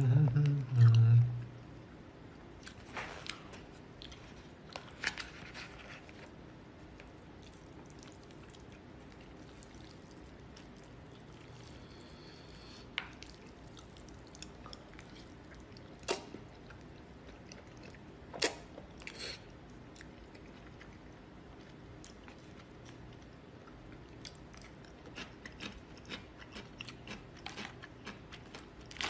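A person eating jjajangmyeon noodles with chopsticks: quiet chewing and mouth sounds, with scattered sharp little clicks, a few standing out in the middle and a run of small ticks near the end.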